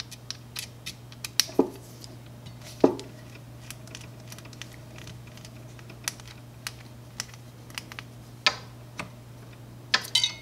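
Scattered light clicks and taps of a screwdriver and small metal and plastic parts being handled on a 3D printer's print head, a couple of duller knocks a few seconds in and a quick flurry of clicks near the end, over a steady low hum.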